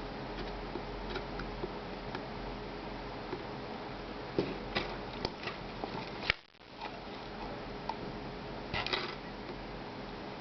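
Steady fan hiss of a hot-air soldering station, with light clicks and taps of small tools on a circuit board, clustered a little past the middle and again near the end.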